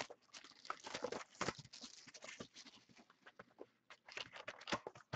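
A trading card hobby box being unwrapped and opened by hand: irregular rustling and crinkling of packaging, with many small clicks and scrapes of cardboard.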